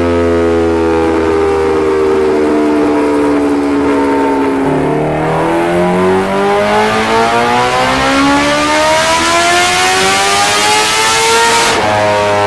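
Kawasaki Ninja H2R's supercharged inline-four engine on a dyno: the revs sag slowly for about four seconds, then climb steadily under throttle for about seven seconds before dropping suddenly near the end.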